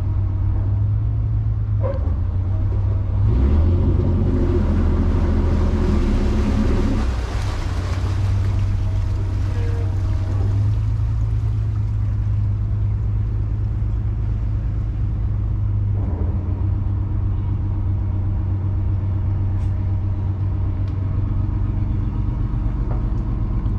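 A fishing boat's inboard engine running steadily at low speed with a deep hum. About three seconds in it grows louder and a rushing noise swells for several seconds, then it settles back to a steady run.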